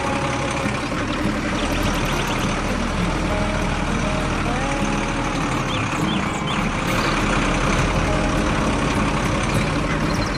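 Cartoon tractor engine sound effect running steadily, with a dense low rumble.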